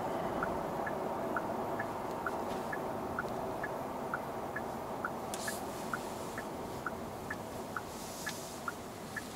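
Turn-signal indicator ticking steadily about twice a second, over the steady engine and road noise inside the cabin of a Genesis G80 diesel.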